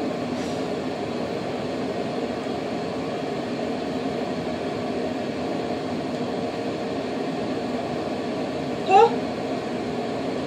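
Steady hum of a room ventilation fan. About nine seconds in, a short rising vocal sound cuts through it.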